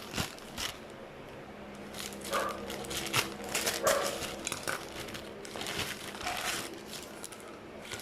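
Plastic packaging crinkling and rustling in irregular handfuls as a parcel is unwrapped by hand.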